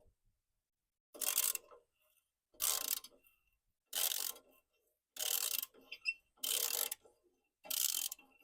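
Ratchet wrench clicking in six strokes, about one every 1.3 seconds, as it works a muffler bolt on a lawn mower.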